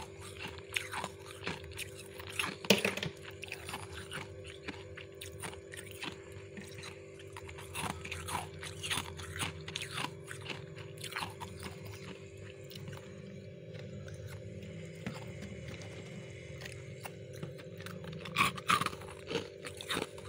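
Crisp crunching of refrozen freezer frost being bitten and chewed, a quick irregular series of crunches that thins out in the middle and comes back loudest near the end, over a steady hum.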